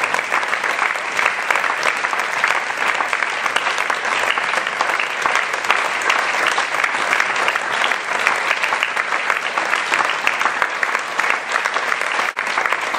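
Theatre audience applauding: dense, steady clapping from many hands, with a brief dip near the end.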